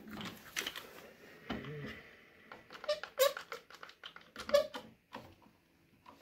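Blue one-handed trigger bar clamp being set and squeezed onto a wooden chair leg: a run of sharp ratcheting clicks and knocks, the loudest about four and a half seconds in.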